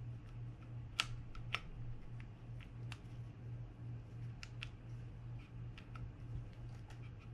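Scattered small metallic clicks and taps from the parts of an opened Daiwa BG90 spinning reel being worked by hand, a stuck internal part tight with dried-up grease being pushed back and forth. The sharpest clicks come about a second and a second and a half in, over a steady low hum.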